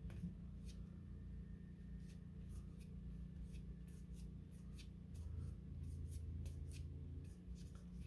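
Faint light clicks and snaps of board game cards being handled and flipped through one by one, over a low steady hum.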